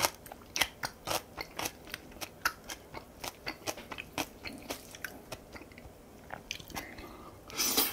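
Close-miked chewing of crunchy kimchi: a quick run of wet, crunchy mouth clicks, several a second, with a louder, noisier mouth sound near the end.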